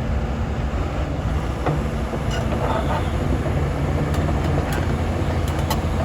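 Case CX240 excavator's diesel engine running steadily. A brief squeal comes a little past two seconds in, and several sharp clicks follow in the second half.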